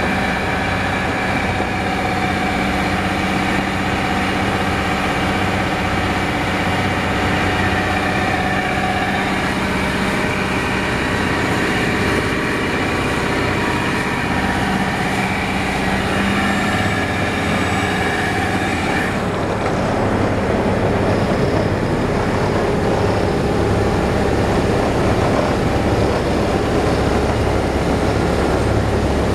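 Yanmar 52-foot boat's diesel engine running steadily under way, with water rushing along the hull. About two-thirds of the way through the higher hiss drops away and the low engine drone grows stronger.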